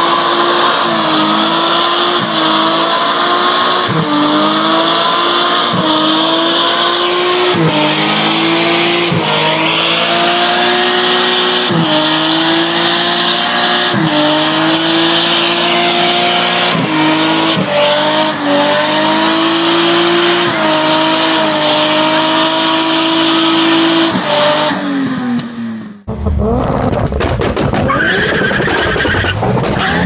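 BMW E30 doing a burnout: the engine held at high revs while the rear tyres squeal, the revs dipping and climbing again about every two seconds. Near the end the revs fall away, then a sudden cut to a different recording of a car's engine and tyres.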